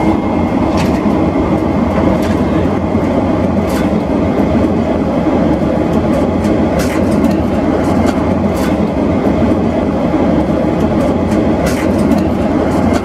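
Steady loud rushing cabin noise inside an Airbus A330 airliner, with a few brief clicks and rustles on top of it.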